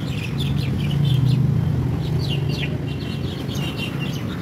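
Small birds chirping in quick, repeated short notes over a steady low hum.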